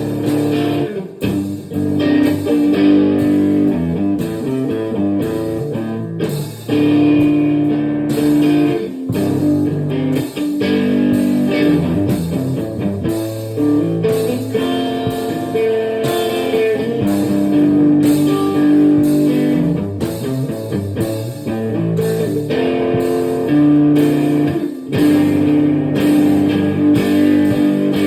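Guitar music, with electric guitar playing chords and held notes throughout.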